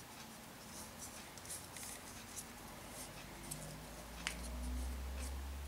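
Faint rustling and scraping of rolled-paper weaving tubes rubbing against each other as one is passed over the others, with a sharper click a little after four seconds. A low hum comes in near the end.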